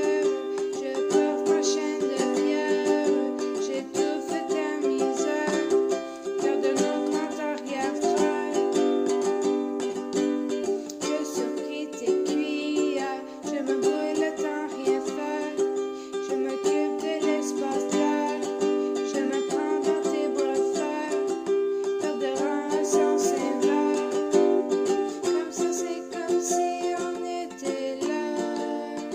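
Ukulele playing strummed chords, with the chord changing every few seconds.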